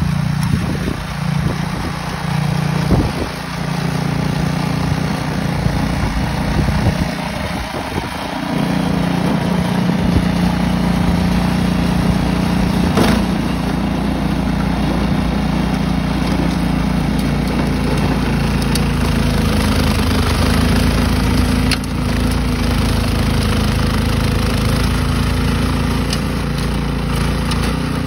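Ariens track-drive two-stage snowblower's engine running steadily under load as the machine chews through and throws snow; the engine note gets fuller and a little louder about a third of the way in.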